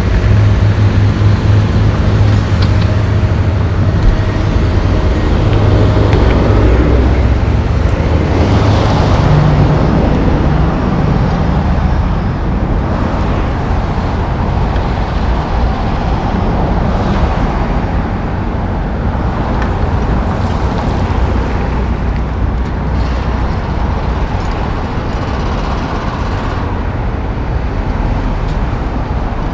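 Diesel engine of a John Deere 470G track excavator running as the machine swings and digs: a steady, loud low drone. It eases a little after the first several seconds.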